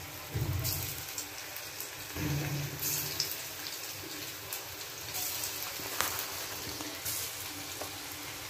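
Potato-and-sabudana squares deep-frying in hot oil in a kadhai: a steady sizzle and crackle of bubbling oil with scattered sharp pops. A couple of soft low bumps come in the first few seconds as more pieces go into the oil.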